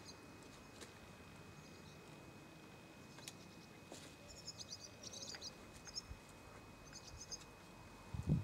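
Faint outdoor ambience with small birds chirping in short, quick clusters of high notes, a few faint ticks, and a dull low thump near the end.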